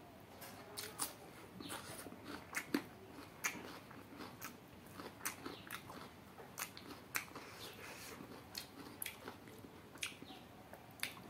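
Close-up chewing of rice and cooked duck: irregular wet mouth clicks, smacks and crunches, several a second.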